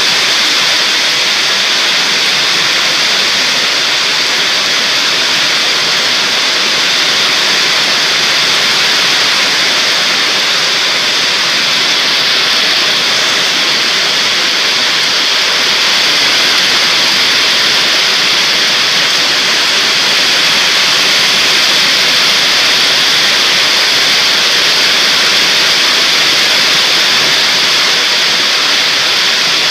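Heavy rain pouring down steadily, a loud even hiss with no let-up.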